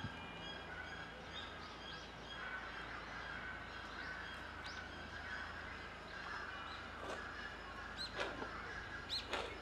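Japanese raccoon dog sneezing: short sharp bursts about eight seconds in and twice in quick succession near the end, over birds chirping in the background.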